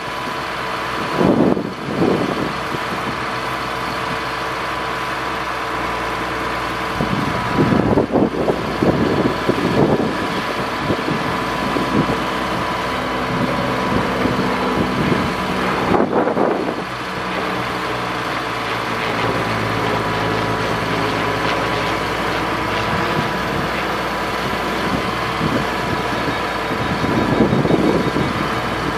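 Engine of a 2001 Ford F750 digger derrick truck running steadily at idle, with a steady whine over it. Gusts of wind hit the microphone several times, about a second in, near 8 and 16 seconds, and near the end.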